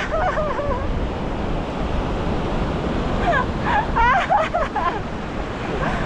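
Waves breaking on a sandy shore, with a steady low wind rumble on the microphone. Short, high, wavering calls come through twice, once near the start and again about three to five seconds in.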